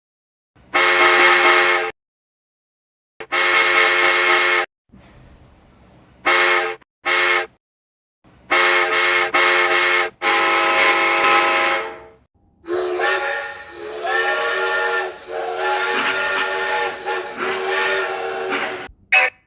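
Casey Jr.'s cartoon steam-train whistle blowing a series of chord-like blasts separated by short silences, some long and some short toots. It ends in a long blast of about six seconds whose pitch wavers up and down. A faint hiss sounds between blasts around five seconds in.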